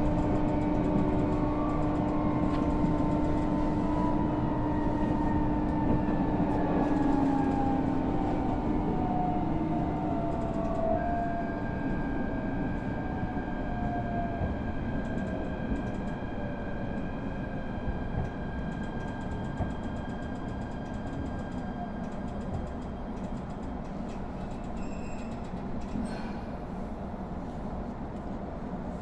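Electric local train running and slowing down, heard from inside the carriage: its motor whine falls steadily in pitch and the running noise grows quieter as it brakes into a station. Steady higher-pitched tones come in about eleven seconds in.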